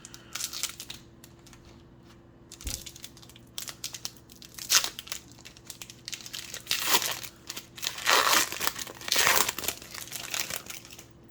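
Foil wrapper of an Upper Deck Marvel Annual trading card pack being torn open and crinkled by hand: a run of uneven rips and crinkles, loudest near the end.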